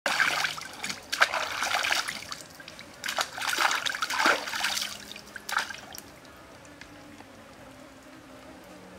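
Water splashing and trickling as hands scoop and slosh in a shallow stream. It comes in several loud bursts through the first five or six seconds, then dies down to a faint trickle.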